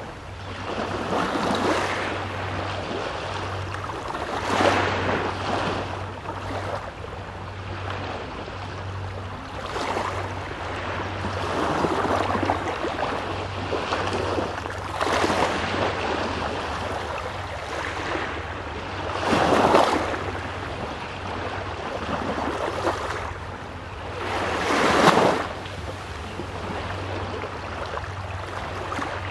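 Small waves breaking and washing on the Baltic Sea shore, in irregular surges a few seconds apart; the loudest come about twenty and twenty-five seconds in. A steady low hum runs underneath.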